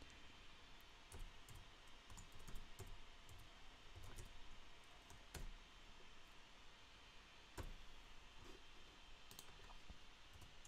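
Faint, scattered keystrokes on a computer keyboard: separate, irregular clicks while code is typed.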